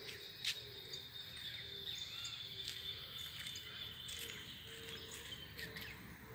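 Quiet outdoor ambience: birds chirping over a steady, high insect-like buzz, with a few faint clicks.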